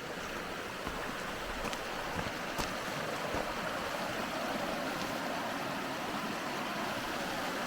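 Steady rushing of a stream's running water, with a few faint clicks.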